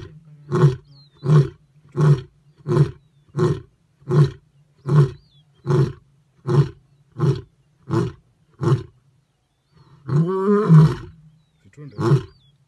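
Male lion roaring: a long run of short, deep grunts, about three every two seconds. About ten seconds in comes one longer, drawn-out roar, then another short grunt near the end.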